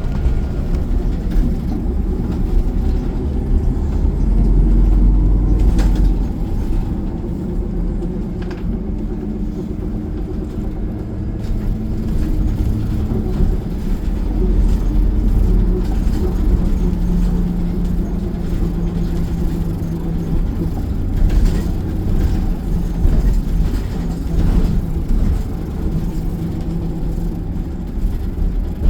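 Inside a moving city transit bus: steady engine and road rumble, the engine's hum shifting in pitch as the bus speeds up and slows, with a few short clicks and rattles.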